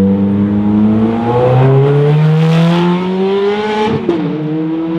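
Ferrari 430 Scuderia's V8 accelerating hard away, its pitch rising for about three seconds before dropping at an upshift about four seconds in.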